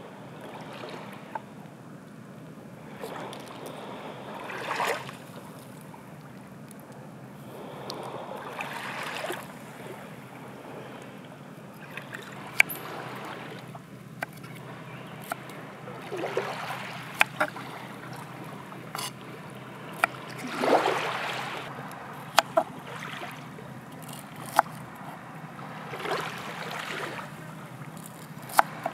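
Knife chopping broccoli on a wooden chopping board: sharp single knocks of the blade hitting the board, scattered through the second half, some in quick pairs. Underneath, water washes in at the shore in swells every few seconds.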